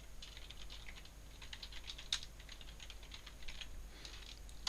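Computer keyboard being typed on, quick irregular runs of faint key clicks: a file name being entered.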